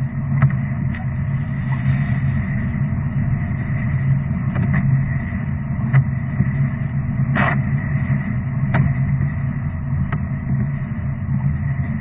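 A car driving: a steady low drone of engine and road noise, with a few brief clicks.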